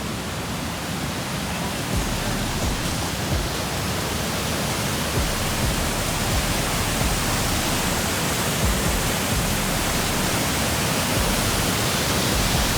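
A waterfall's steady rush of falling water, getting slightly louder as it goes.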